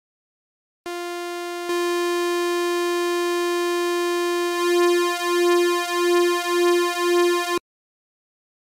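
Arturia OP-Xa V software synthesizer playing one held lead note. It comes in about a second in and steps up in level shortly after. About halfway through it starts pulsing in volume roughly twice a second, then cuts off suddenly near the end.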